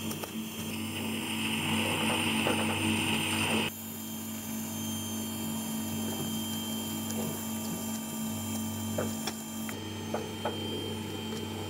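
TIG welding torch arc on a steel exhaust pipe, with the welder's steady electrical hum under a higher hiss that drops away about four seconds in. A few light clicks come near the end.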